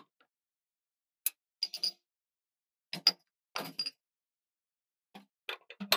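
Short clinks and knocks of espresso equipment being handled at an espresso machine, metal and glassware tapping together. They come in small clusters, about a second apart, some with a brief high ring.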